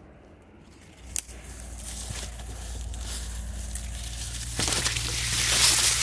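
Dry grass and brush rustling and crackling as someone pushes through it on foot, with footsteps, growing louder toward the end. A low steady hum runs underneath from about a second in.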